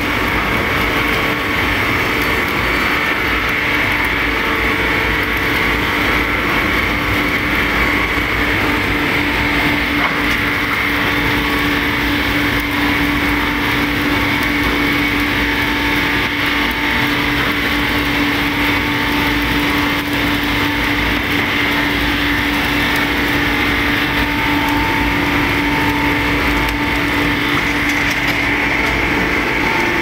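Circular-saw sawmill line running steadily: its electric motors, spinning saws and chain conveyors make a dense, even machine noise with a few held tones under it.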